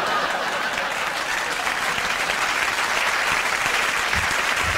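Audience applauding steadily in response to a joke.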